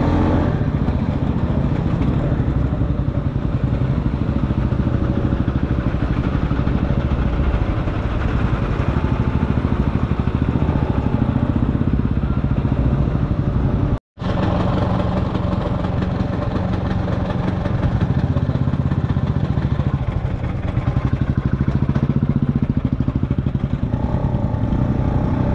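LML NV scooter's two-stroke engine running at low speed while it crawls through a jam of trucks, cars and motorcycles, with the other vehicles' engines around it. The sound cuts out completely for a split second about halfway through.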